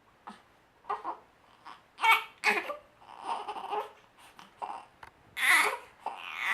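Baby fussing in short, high-pitched babbling sounds that grow louder and longer near the end, turning into crying.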